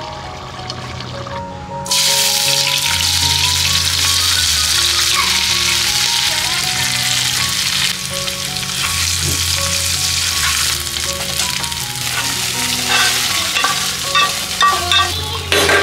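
Onions, ginger and spices sizzling as they fry in oil in a non-stick pan, starting about two seconds in. Near the end a metal spatula scrapes and clicks against the pan.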